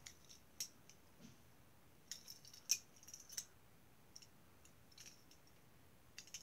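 Faint scattered clicks and light crinkly ticks from handling a die-cast toy car, with a small cluster of them about two to three seconds in and near-silence between.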